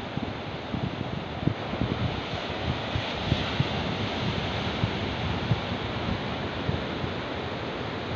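Steady wash of surf breaking on a sandy beach, with wind buffeting the microphone in frequent short low rumbles.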